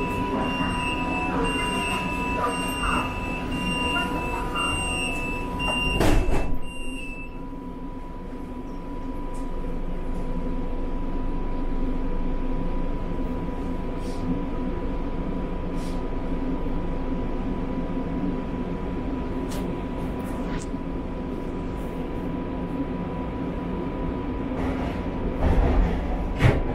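Inside a Shanghai Metro car: a repeating electronic beep sounds for the first several seconds and ends with a heavy thud about six seconds in, typical of the door-closing warning and the sliding doors shutting. Then the train runs with a steady rumble and a constant whine, with louder low knocks near the end.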